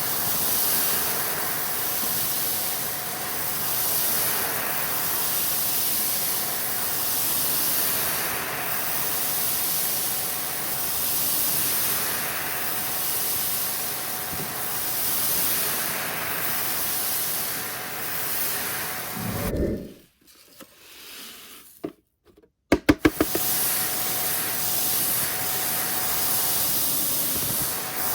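Vacuum cleaner running with a steady hiss and a faint whine, swelling and easing about every two seconds as it is pushed back and forth over the rug. About twenty seconds in it cuts out, there are a few sharp clicks, and it runs again a few seconds later.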